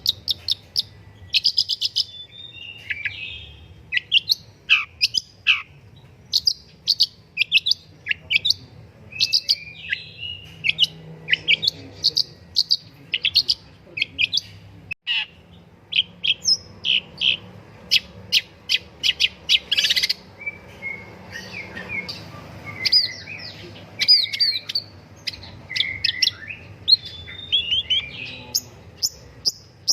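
Long-tailed shrike (pentet or cendet) singing a continuous, varied song of quick high chirps, rapid trills and harsher chattering notes, with a momentary break about halfway through.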